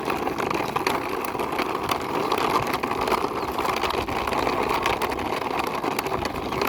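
Toy quad bike's plastic wheels rolling steadily as it is pushed along by hand, a grainy rumble with small ticks.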